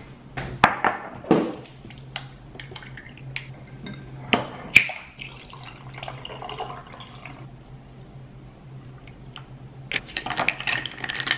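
Ice cubes clinking and knocking in a glass tumbler, then cold brew coffee poured over the ice. Near the end a straw stirs the drink and rattles the ice. A steady low hum runs underneath.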